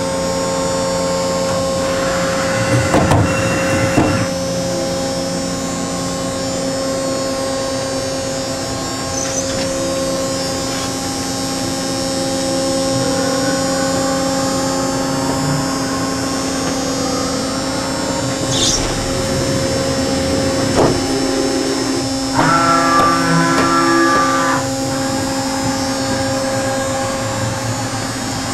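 Okuma & Howa Millac 630H horizontal machining center under power, humming steadily with several steady motor tones. A couple of knocks come around three and twenty-one seconds in, and a brief higher whine comes from about twenty-two to twenty-four seconds in.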